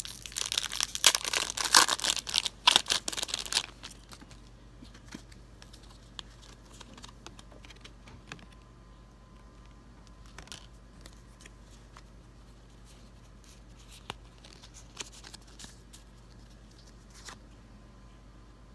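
Foil Pokémon booster pack wrapper being torn open and crinkled for about three and a half seconds, then quiet with a few faint clicks and slides as the cards are flipped through by hand.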